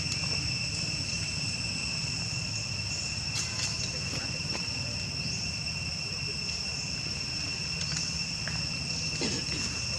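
Steady, unbroken high-pitched drone of insects, one whining tone with a fainter higher overtone, over a low background rumble, with a couple of faint brief sounds about three and a half seconds in and near the end.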